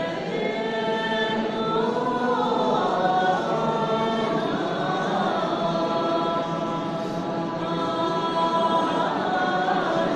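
A mixed choir of boys and girls singing together in chorus with no instruments, holding long sustained notes.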